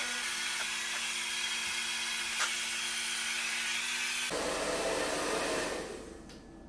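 Handheld hair dryer blowing on a dog's coat: a steady rush of air with a motor hum. The sound changes abruptly about four seconds in, and the dryer stops about a second before the end.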